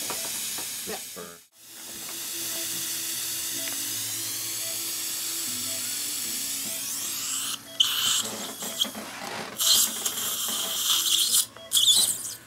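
Dental implant drill in a contra-angle handpiece running with water spray: a steady high whine and hiss that stops briefly about a second and a half in, rises in pitch a few seconds later, and breaks into louder uneven spurts of hiss over the last few seconds. Faint music underneath.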